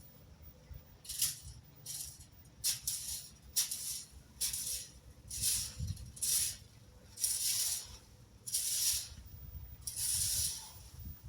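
A rake being dragged through dry leaves and tree trimmings in repeated rustling, scraping strokes, about one a second, over a low rumble of wind on the microphone.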